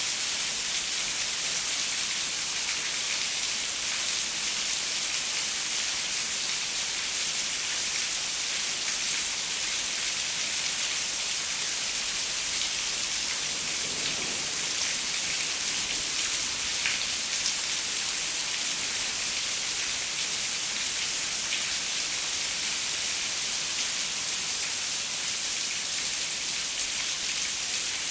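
Steady rain pattering on a window, an even hiss with scattered drop ticks.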